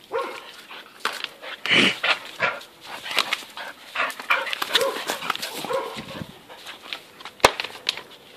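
Two Staffordshire-type terriers, an older Staffy and an American Staffordshire terrier puppy, playing rough: short barks, yips and whimpers come in irregular bursts, mixed with scuffling. A single sharp click sounds near the end.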